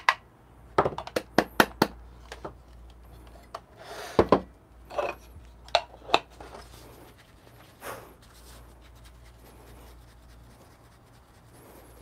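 Sharp taps and light knocks as ground coffee is brushed and tapped out of a blade grinder's metal cup into a Kruve sifter, followed by the sifter's wooden lid being set in place. A quick cluster of taps opens, a few more knocks come around the middle, and the last few seconds are quiet.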